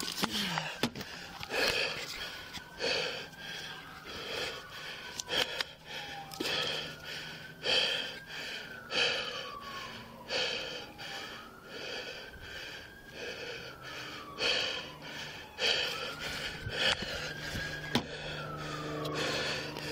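Heavy, fast breathing close to a body-worn camera's microphone, a loud breath a little more than once a second. Under it, fainter, a siren wails slowly up and down.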